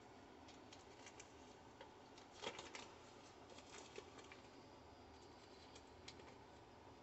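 Faint crinkling of a butter stick's paper wrapper being peeled open by hand: scattered small ticks, with one louder crackle about two and a half seconds in.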